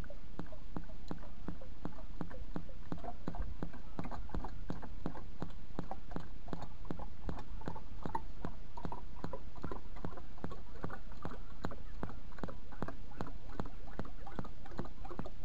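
Gear oil glugging steadily out of an upturned plastic jug into a tractor's transmission filler, about four glugs a second.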